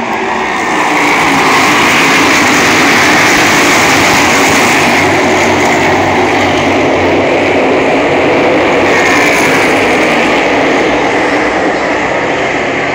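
Pack of NASCAR Cup Series stock cars with V8 engines at full throttle, accelerating together on a restart as the field passes. The sound is very loud and dense, swelling about a second in and then holding steady.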